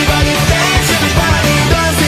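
Loud rock music with a steady drum beat, laid over the footage as a soundtrack.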